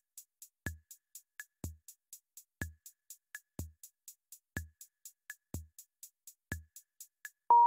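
Drum-machine timer beat: a soft kick about once a second under quick ticks about four a second, ending in a beep near the end that marks time up for the spoken answer.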